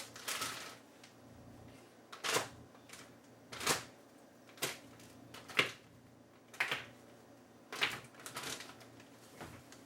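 Frozen puréed Brussels sprout baby-food cubes clacking as they are handled one by one, making about ten sharp knocks spread roughly a second apart.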